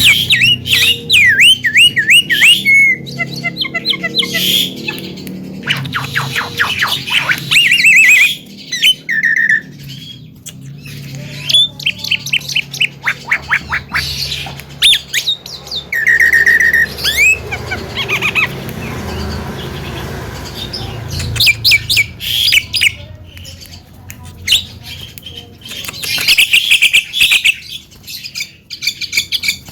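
Javan myna singing: bursts of loud squawks, rapid falling whistles and chattering notes with short pauses between, including one held whistle about halfway.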